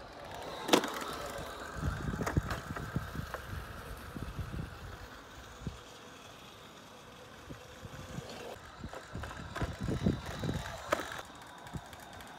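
Razor electric scooter being ridden: a low rolling rumble of small wheels over the ground, with scattered knocks and clicks, the sharpest one about a second in.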